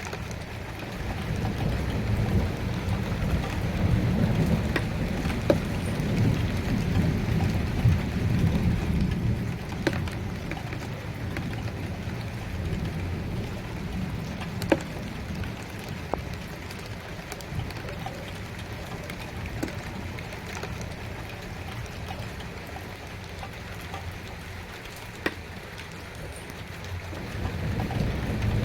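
Steady rain falling, with scattered single heavy drops striking a surface, and low rolling thunder that swells for the first several seconds and builds again near the end.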